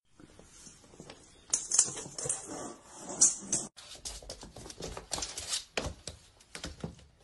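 A cat scrabbling on a wooden floor: quick, irregular taps and scuffs of paws and claws.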